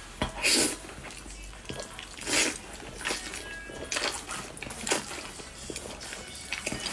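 A person slurping spicy instant noodles into the mouth, with loud slurps about half a second in, around two and a half seconds and near five seconds, and softer chewing and small clicks between.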